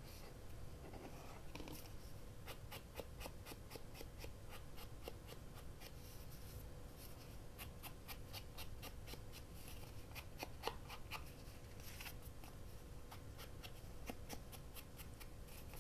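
Faint paper-crafting handling sounds: runs of small crisp clicks and rustles from hands and tools working paper, over a faint steady hum.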